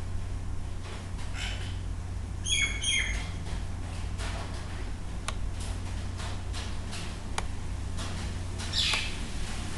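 Two quick high chirps about two and a half seconds in and another near the end, over a steady low hum, with a couple of faint clicks between them.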